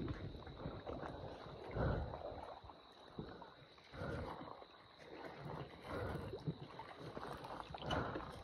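Water sloshing and splashing as someone wades through shallow water, with a swell of splashing about every two seconds.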